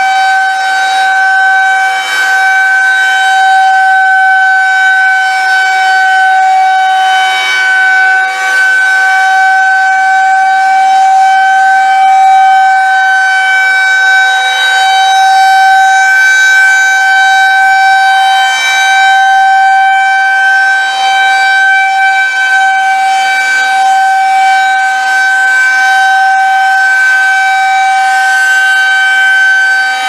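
Federal Signal 2001-130 rotating electromechanical siren sounding one long, steady-pitched wail during a monthly test, swelling and fading slightly as its horn turns.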